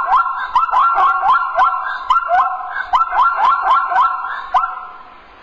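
Zebra calling: a fast run of short, high, rising barks, about three or four a second, that stops about four and a half seconds in.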